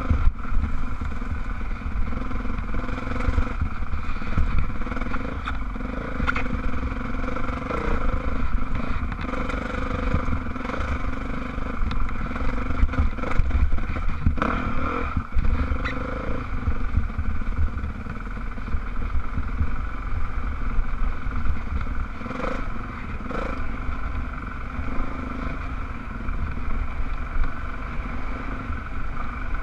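Dirt bike engine running steadily at a fairly even pitch, picked up by a helmet-mounted camera, with a few sharp knocks and clatter from the bike over the rough trail.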